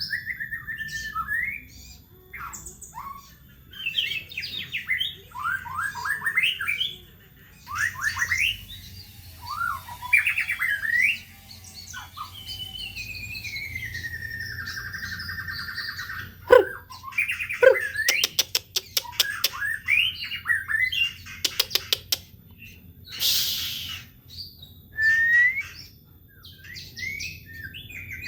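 White-rumped shama (murai batu) singing a long, varied song of whistled phrases, sliding notes and trills. About two-thirds of the way in come runs of rapid clicks, followed shortly by a brief harsh rasp.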